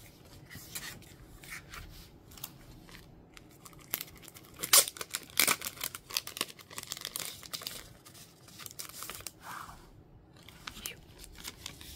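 Clear plastic packaging crinkling and rustling as a cardboard card of rubber connecting bands is handled and taken out of its sleeve, with the loudest sharp crackles about five seconds in.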